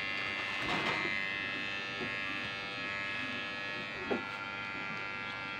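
Electric hair clipper running steadily with a buzz as it cuts short hair at the back of the head, taken down to zero with no guide comb. A short click about four seconds in.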